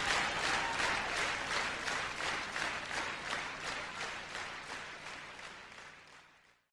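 Applause: a dense patter of clapping with an even pulse of about three claps a second, fading out to silence near the end.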